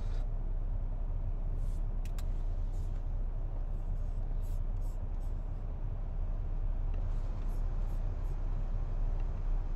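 Steady low background hum with a little hiss, with a few faint clicks about two seconds in.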